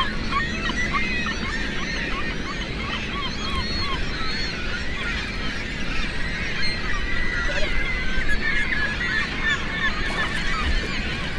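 A flock of birds calling without a break, many short overlapping calls crowding over each other, above a low steady rumble.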